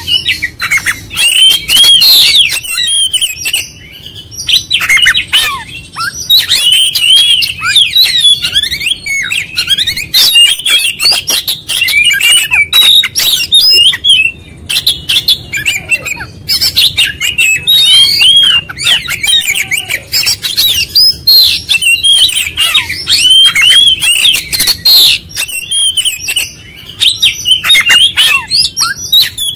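Caged oriental magpie-robin in full song: a loud, rapid run of varied whistles, trills and chirps, delivered in long phrases broken by short pauses.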